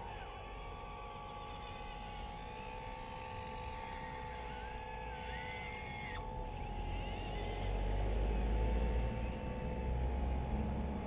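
Radio-controlled model excavator running, its motor and hydraulic pump giving a steady whine, with a low rumble that builds up about halfway through and is loudest near the end.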